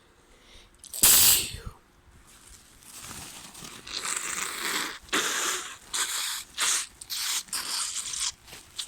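A person with a head cold sneezes once, loudly, about a second in. They then blow their congested nose into a tissue: one long blow, then several shorter blows in quick succession.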